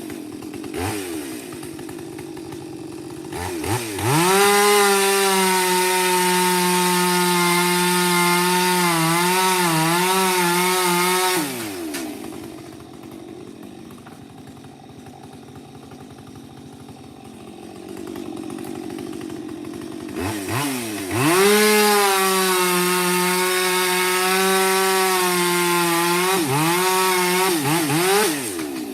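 Husqvarna two-stroke chainsaw cutting firewood, twice revved to full throttle for several seconds. Near the end of each run the pitch wavers as the chain bites into the log. Between the cuts it drops back to a low idle.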